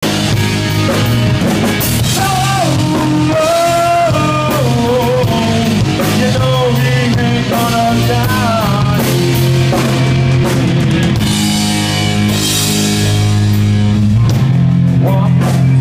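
Rock band playing loudly and steadily, with guitar, a drum kit and a singing voice over the top.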